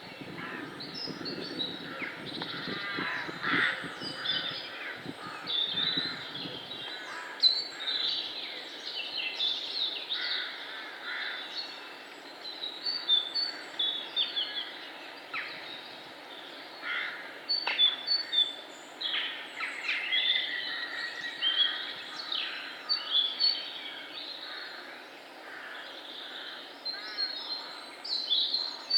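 Woodland birdsong: many birds singing and calling over one another in a dense, continuous chorus of chirps and short whistled phrases.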